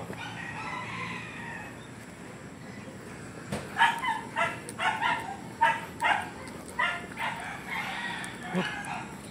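Chickens calling: a rooster crows at the start, then a run of about ten short, sharp clucks follows at roughly two a second.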